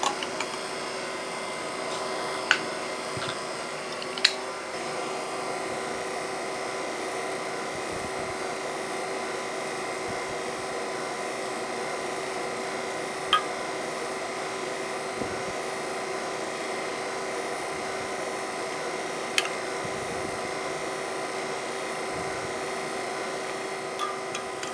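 A spoon stirring a thick sauce in a glass measuring cup, with a few sharp clinks of the spoon against the glass, over a steady machine hum.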